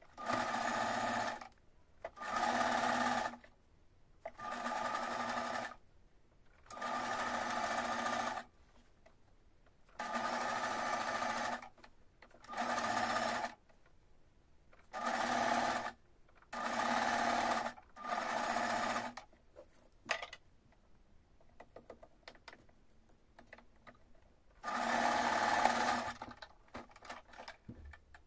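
Domestic electric sewing machine stitching in short runs, about ten of a second or so each, with brief stops between them as the fabric is guided along a trimmed neckline. A longer pause near the end holds faint rustling and clicks of fabric being handled, and then comes one more run.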